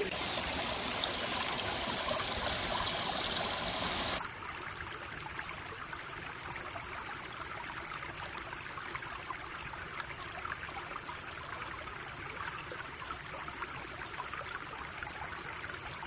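Mountain stream flowing over rocks, a steady rush of water. About four seconds in it drops abruptly to a quieter, thinner rush that carries on unchanged.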